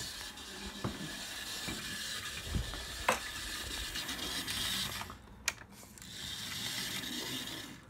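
Hornby James OO-gauge model locomotive running on track, the ringfield motor in its tender whirring steadily through its gears with a few sharp clicks. The running sound drops briefly about five seconds in, then picks up again.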